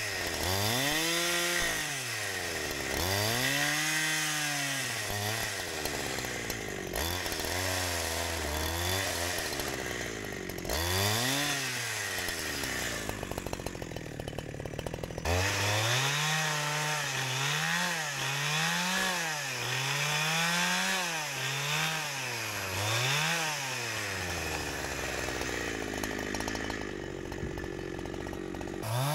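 Holzfforma G372XP two-stroke chainsaw with a 28-inch bar ripping a log lengthwise into thin boards. The engine revs rise and fall over and over, at times about once a second.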